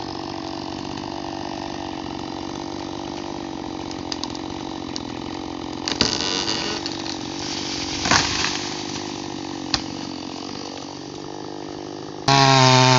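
Chainsaw engine running steadily at a low throttle, with a few sudden sharp noises about halfway through. Near the end it is suddenly opened up to full throttle and becomes much louder.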